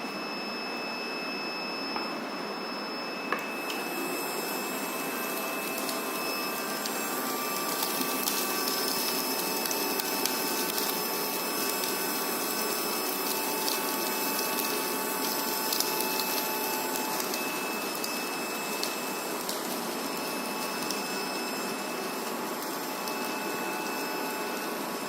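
Homemade vacuum cleaner, a small 9-volt DC motor spinning a fan in a plastic box, running steadily with a whir and a thin whine. There is a click about three seconds in, after which the whir turns brighter.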